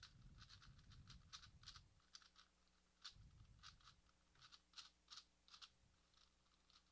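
Faint, irregular plastic clicking of a ShengShou 4x4 puzzle cube as its layers are turned quickly by hand, several clicks a second, with a low rumble of handling in the first two seconds and again about three seconds in.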